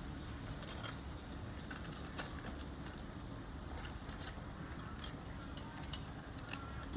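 Faint, scattered clicks and clinks of metal kitchen tongs handling fried banana fritters on a plate, over a steady low hum.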